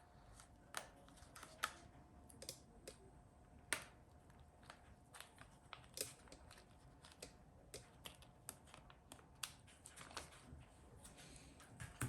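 Faint, irregular clicks and taps of a laptop hard drive being handled and taken out of its casing, over a faint steady hum.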